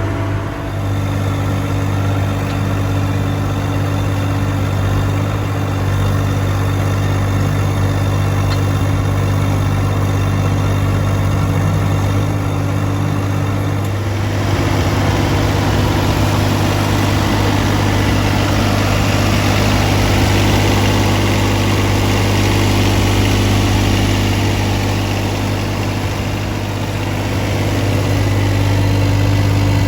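Yanmar diesel engine of a Sunward SWE18UF mini excavator running steadily with a strong low hum. About halfway through, a rougher, hissier sound joins in over the unchanged engine note.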